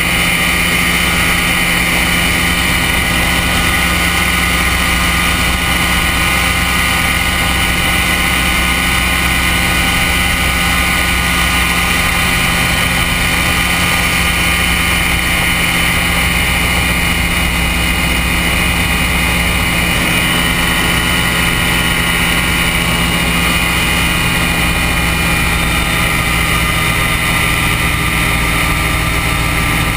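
Ultralight aircraft engine and propeller running steadily in cruise flight, heard from the open pilot's pod.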